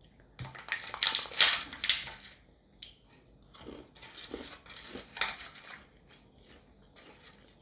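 Sharp crackling handling noises for the first two seconds or so, then softer scrapes and clicks as a thin white plastic candy-kit tray is handled.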